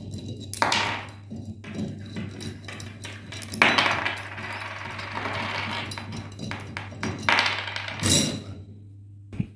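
Metal parts of a small flanged globe valve clinking and scraping as it is taken apart by hand, with its bonnet bolts and nuts handled. A few short clattering bursts and one longer rasping stretch near the middle.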